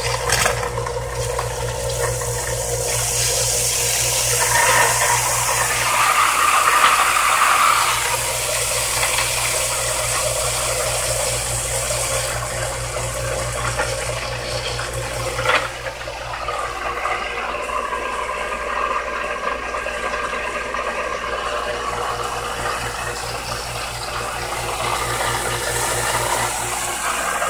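Water spraying hard out of an open fitting on freshly primed PVC well piping, over the steady hum of a newly started Pacific Hydrostar 1 HP shallow-well pump motor. The rush swells a few seconds in, and there is one sharp knock a little past halfway.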